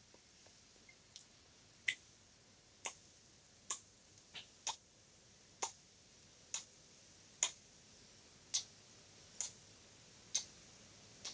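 ASMR wet mouth sounds: a string of sharp, moist clicks, about one a second, a dozen in all.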